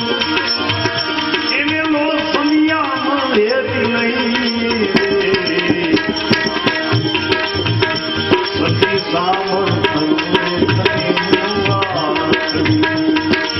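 Bhajan music: tabla playing a steady rhythm under a sliding melodic line.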